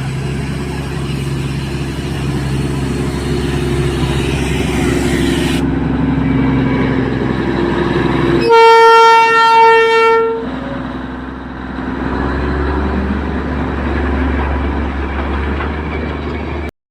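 Darjeeling Himalayan Railway coal-fired steam locomotive sounding one loud whistle blast of about a second and a half, about halfway through, over the steady low noise of the running train.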